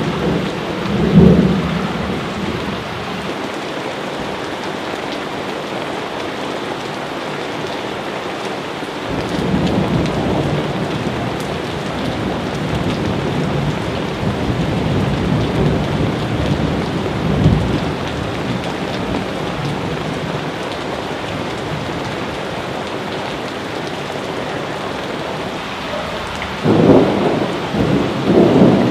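Steady rain falling, with rolls of thunder: a rumble about a second in, another building about a third of the way through, and a louder one near the end.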